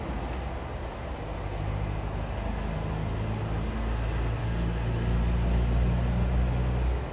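Steady low engine rumble with a constant hiss, swelling slightly and then dropping off just before the end.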